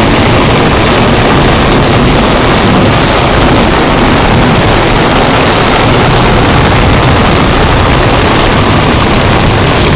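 Heavy rain falling in strong wind: a loud, steady, even rushing noise.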